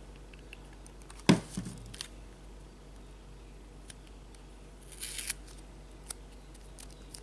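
Handling a Baofeng UV-82 handheld radio and its battery pack, with one sharp plastic click about a second in, then a few faint ticks and a short rustle near five seconds.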